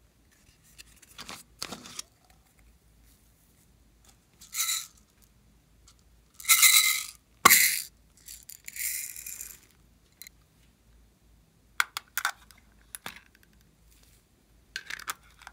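Small plastic cups and a bottle of glitter and beads being handled and emptied onto a tray of slime: several short rattling, rustling pours, the loudest about seven seconds in, with sharp plastic clicks in between and toward the end.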